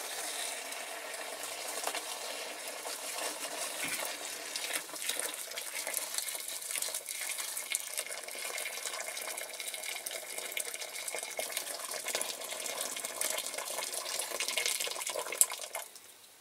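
Hot water poured from a kettle into a plastic tub, a steady splashing pour over a wire basket and metal model parts; the pour stops shortly before the end.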